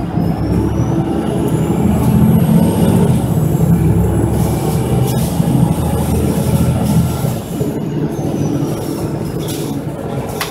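City bus engine and drivetrain running, heard from inside the passenger cabin. The rumble swells about two seconds in and eases after about seven seconds. A thin high whine rises in pitch early on, holds, then falls toward the end.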